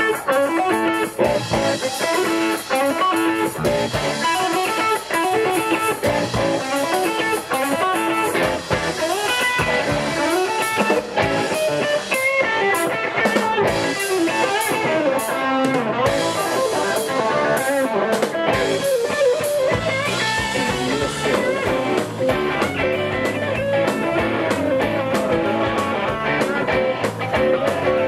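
Live Southern rock band playing: electric guitars over a drum kit, with the low end filling out about two-thirds of the way through.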